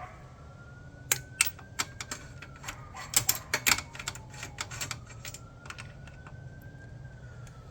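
Sharp metallic clicks and clinks of hand tools, in quick clusters about a second in and again three to four seconds in. Under them a faint siren wails slowly up and down.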